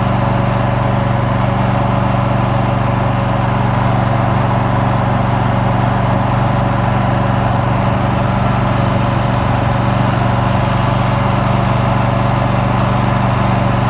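Riding lawn mower engine running steadily at a constant speed as the mower is driven along.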